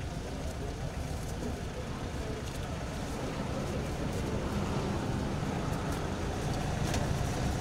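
Road traffic noise: a steady low rumble of passing vehicles, growing slightly louder toward the end.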